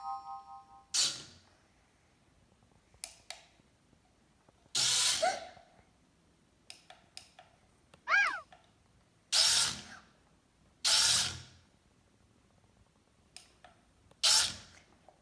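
Small electric motor of a toy remote control car whirring in about five short bursts as it is driven in starts and stops, with light clicks between them. A brief squeak rises and falls about eight seconds in.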